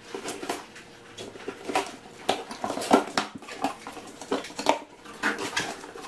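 Scissors slitting the packing tape on a cardboard box and the cardboard flaps being pulled open: a string of irregular scrapes, rips and knocks.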